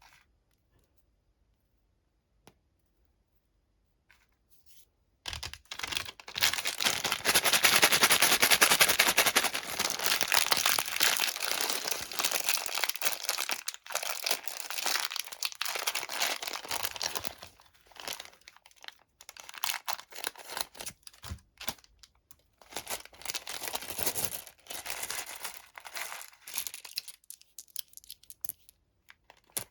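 Candy packaging being torn open and crinkled by hand: after a few seconds of near silence, a long stretch of continuous crackling and tearing, then shorter bursts of crinkling on and off.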